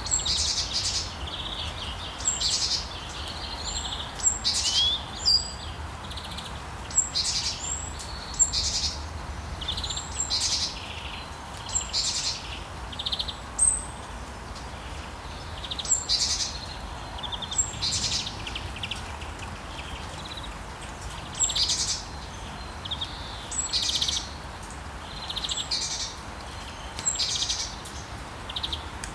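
Small birds chirping and calling over and over, short high notes a second or two apart, over a steady hiss of light rain and a low rumble of wind.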